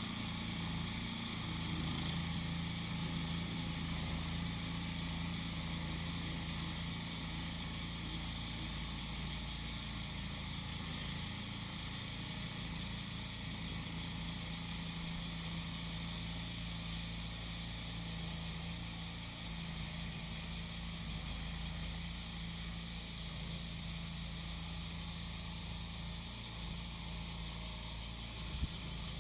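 Small engine of a grass-cutting machine running at a steady speed, under cicadas buzzing in the trees. There is one brief click near the end.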